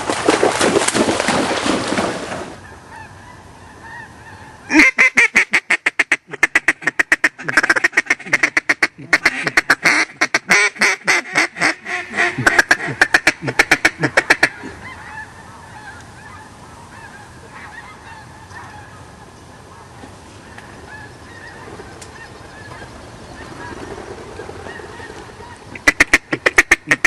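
Waterfowl calling: a long run of rapid, pitched, honk-like call notes from about five to fourteen seconds in, and a short run again near the end. It opens with a loud burst of noise lasting about two seconds.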